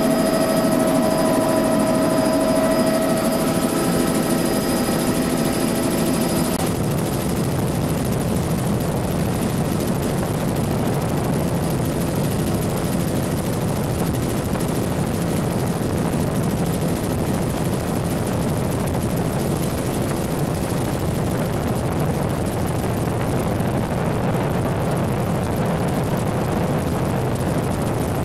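Bell 206 JetRanger helicopter in flight, heard from the cabin with the doors off: steady turbine whine over the rotor and a constant rush of wind. About six seconds in, the whine cuts out abruptly, leaving a steady rushing rotor and wind noise.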